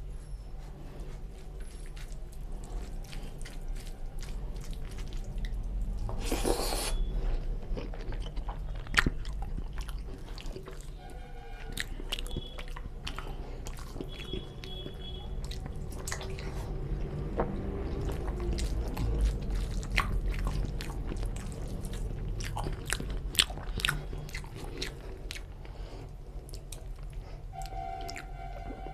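Close-miked chewing and biting of rice with chicken and egg curry eaten by hand, with the sounds of fingers mixing the rice and curry. A short hissy burst comes about six and a half seconds in.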